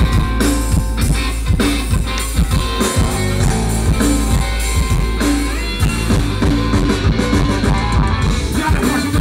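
Rock band playing live: electric guitar and drum kit with a steady beat, amplified through the stage sound system.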